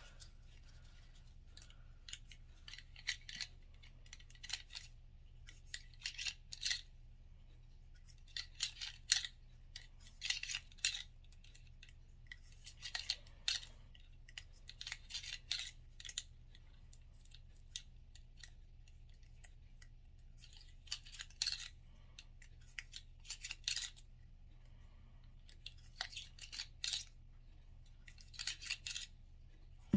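Cleaning rod pushing a cotton patch back and forth through a pistol barrel: short scratchy rasps that come in irregular clusters with short pauses between them. This is bore-cleaning with patches.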